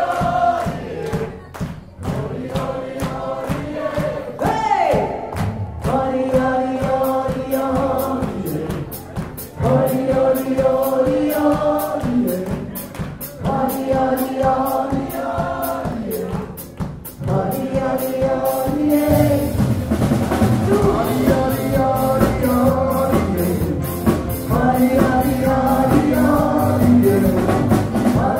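Party dance band playing with a steady beat, several voices singing together in phrases; the music gets fuller and louder about two-thirds of the way in.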